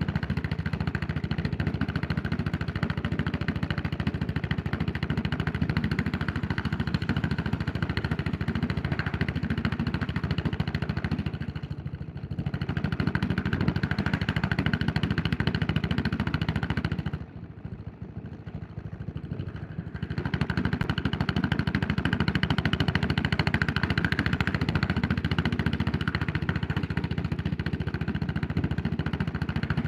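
Yamaha SR400's air-cooled single-cylinder four-stroke engine running under way on the road. It eases off briefly about twelve seconds in. Then near the middle it drops to a much quieter level for about three seconds, as with the throttle closed, before pulling strongly again.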